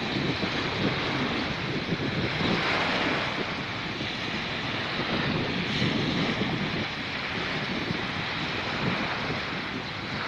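Small sea waves washing onto a sandy beach, with wind buffeting the microphone in an uneven low rumble.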